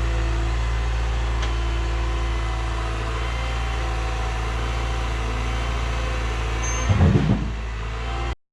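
Cat 314E excavator's diesel engine running steadily. Near the end there is a short, louder burst of knocks, and then the sound cuts off abruptly.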